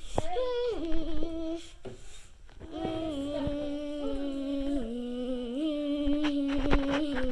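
A child humming a wordless tune in long held notes, with a short break about two seconds in.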